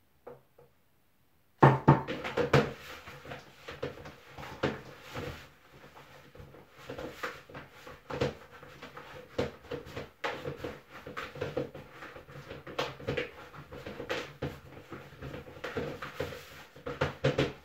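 Kitchen clatter at a counter: irregular knocks and clicks of bowls, utensils and dishes being handled, starting abruptly about a second and a half in, over a faint steady low hum.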